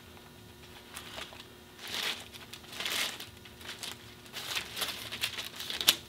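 Thin Bible pages being leafed through by hand: a run of soft papery rustles and crinkles, with a sharp tap just before the end.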